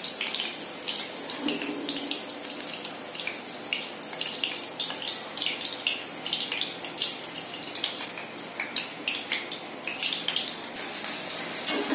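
Hot oil sizzling and crackling in a kadai as vadas deep-fry, with many small pops throughout.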